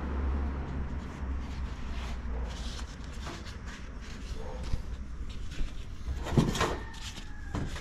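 Knocks and clicks of parts being handled and fitted into a heater/air-conditioning case, with a few sharper knocks near the end, over a steady low hum.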